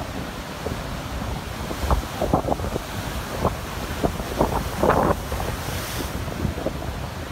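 Heavy ocean surf breaking and rushing up the beach, with strong wind buffeting the microphone in uneven gusts.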